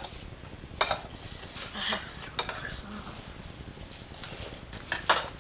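A few separate clinks and knocks of kitchen utensils and dishes, with a quick double knock near the end.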